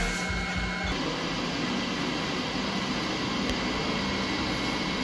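Santoker STK sample roaster's blower fan running with a steady, even fan-like noise, the machine's normal baseline sound.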